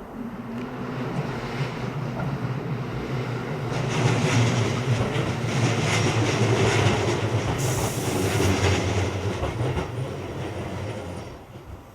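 Tobu Railway electric train running by, its wheels clattering over the rail joints, the sound building up and then dying away near the end. A brief high hiss comes about eight seconds in.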